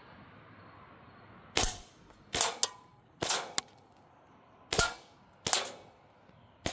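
Crosman M1 BB rifle firing six single shots, sharp cracks at uneven spacing of about one second. A couple of the shots are followed closely by a fainter click.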